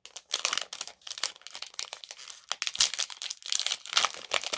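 Foil Pokémon booster pack wrapper crinkling and rustling in the hands as it is opened, in a dense run of irregular crackles.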